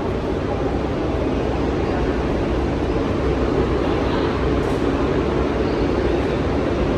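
New York City subway train running through the station, a steady rumble that grows slightly louder.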